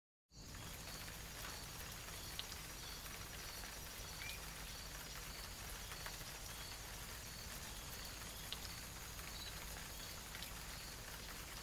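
Steady ambient noise that fades in after a moment of silence, with a faint high chirp repeating at an even pace, a few light ticks and a low hum underneath.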